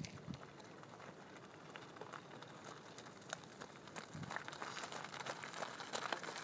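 Faint crunching of a runner's footsteps and bicycle tyres on a gravel path, becoming closer and busier near the end.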